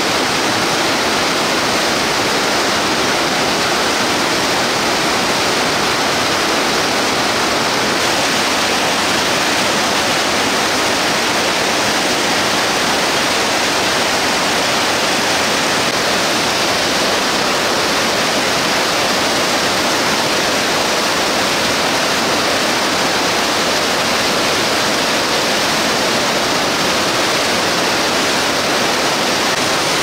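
River waterfall and rapids swollen to flood stage, pouring whitewater in a steady, unbroken rush of water noise.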